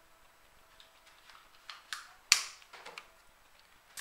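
Sharp plastic clicks and knocks from handling a Nerf toy blaster and its clip-on tactical light. There are a few light clicks, then one louder click a little past halfway, and softer ones after it.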